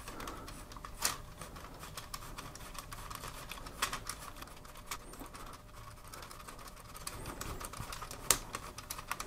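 Plastic LEGO Technic gears and parts clicking and ticking as a handle is turned to raise the car transporter's upper deck. A few sharper clicks stand out, about a second in, around four seconds and near the end.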